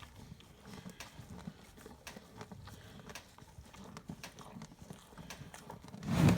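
Cattle feeding on corn and pears, with scattered small clicks and shuffling of hooves and muzzles at the feed. About six seconds in comes one short, loud thump.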